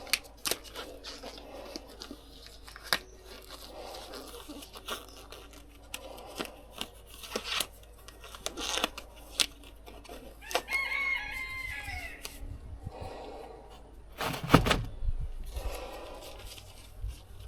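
A rooster crows once in the background about ten seconds in, over rustling and handling noises close to the microphone. A heavy thump comes a few seconds before the end.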